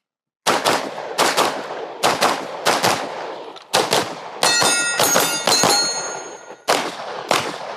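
A timed practice stage run of rapid gunfire, mostly quick pairs of shots (double taps), over about seven seconds. Steel targets ring as they are hit in the middle of the string.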